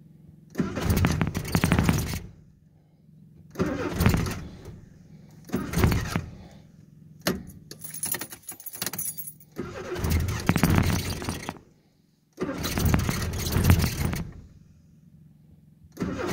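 A car engine cranked on the starter in cold weather without the choke, in about six separate attempts of one to two seconds each that leave it not yet running: a hard cold start. Keys jangle about eight seconds in.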